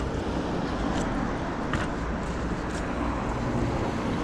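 Steady street noise with a low rumble from car traffic passing through an intersection.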